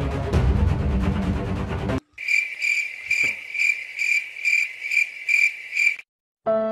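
Dramatic background music gives way at a hard cut to a cricket-chirping sound effect, about two chirps a second for four seconds, the stock 'awkward silence' gag. It stops abruptly, and after a brief silence violin music starts near the end.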